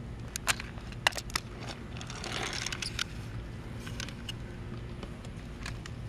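Handling noise: a few sharp plastic clicks and taps, several close together in the first second and a half, a short rustle about two seconds in, then a few more clicks.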